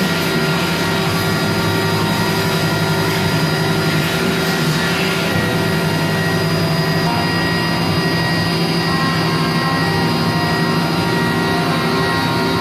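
Mazak Variaxis 500 five-axis CNC vertical machining center running under power: a steady machine hum and noise with several constant whining tones, low and high.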